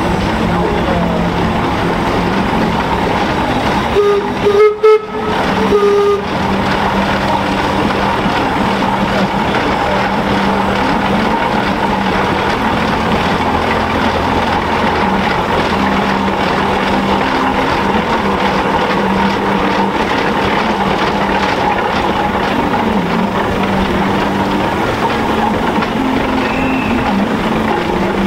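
Steam traction engine running as it drives past, a steady mechanical drone. About four seconds in, a steam whistle blows for about two seconds, the loudest sound.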